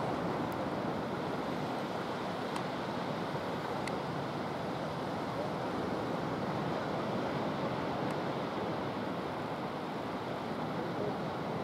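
Steady wash of sea surf breaking on a sandy beach, with some wind on the microphone.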